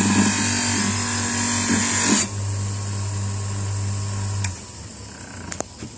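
Bench grinder running with a steady hum while a cast metal corner clamp is pressed against its spinning wheel for about two seconds, a harsh grinding hiss. The motor hum stops about four and a half seconds in, followed by a couple of light clicks.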